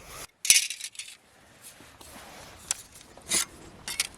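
Light metallic clinks and jingles, like small metal pieces or hand tools being handled, loudest about half a second in, with a few fainter ones later.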